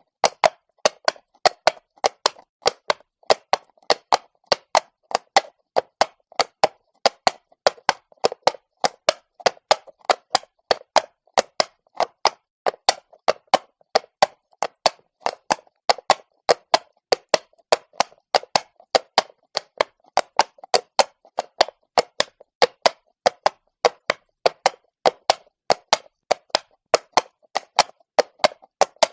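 A horse's hooves clopping on cobblestone at a walk: sharp, even strikes in a steady rhythm of about three a second.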